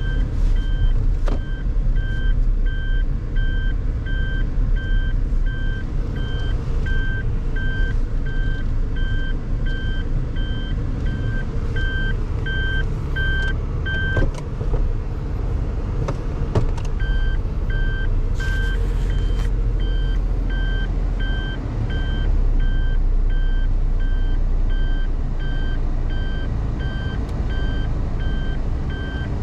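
A motor vehicle's steady low rumble with an electronic warning beeper sounding about twice a second; the beeping stops for about three seconds around the middle, then resumes.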